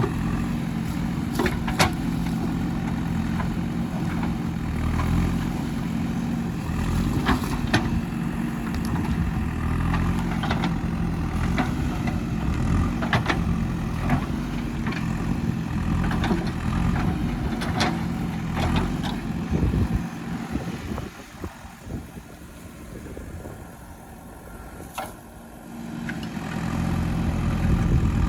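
Diesel engine of a digging machine running under load, with scattered sharp clanks and knocks from the working bucket and arm. The engine drops to a quieter, lower running for several seconds past the middle, then picks up again near the end.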